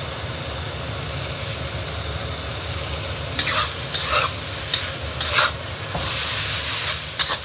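A spatula stirring and scraping sliced luffa around a wok over high heat, the watery pan sizzling steadily. About halfway through come four sharp scrapes, roughly one every 0.7 seconds, and the sizzle grows louder near the end.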